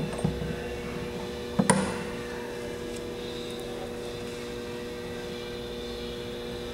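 Steady electrical hum, with a few light metal knocks at the start as a steel tool holder is set down on the table, and a sharper metallic clank a little under two seconds in.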